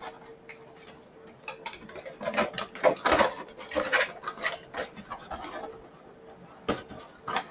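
Stiff clear plastic blister packaging and a cardboard box being handled and set aside: irregular crinkles, clicks and taps, busiest in the middle, with two sharper knocks near the end.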